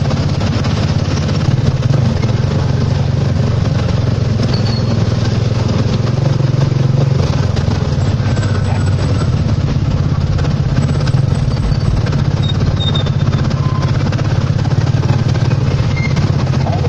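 Motorcycle engine of a tricycle running steadily while under way, heard from its sidecar, over a steady hiss of rain and wet tyres on the road.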